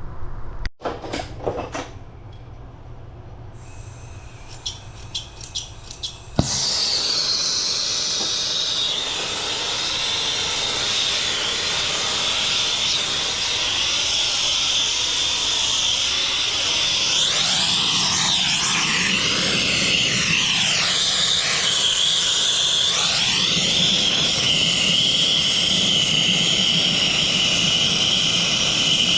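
A few clicks and scrapes, then an acetylene torch lights about six seconds in and burns with a steady loud hiss, heating copper pipe for soldering.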